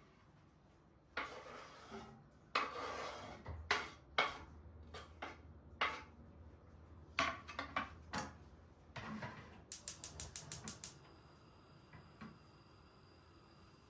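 Hands handling objects at close range: a series of short rustles and knocks, then a quick run of about ten clicks near the middle, then a faint steady hum.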